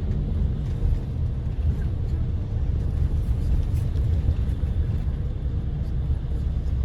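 Steady low rumble of a moving bus: engine and road noise.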